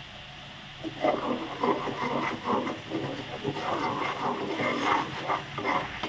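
Wooden spatula stirring and scraping a non-stick wok of bubbling sugar syrup, starting about a second in with quick, irregular strokes.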